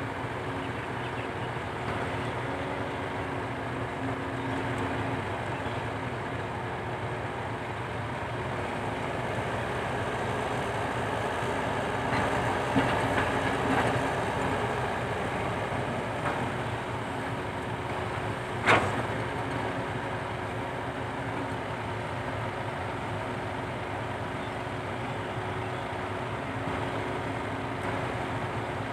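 Komatsu PC120-5 excavator's diesel engine running steadily at work. A few knocks come through it, the loudest a single sharp knock about two-thirds of the way in.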